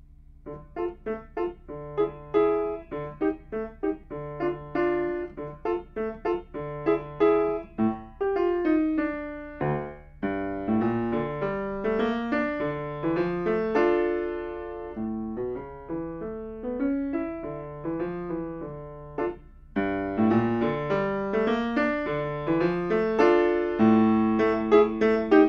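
Grand piano played solo, opening with separate detached notes, with brief breaks about ten and twenty seconds in and louder playing near the end.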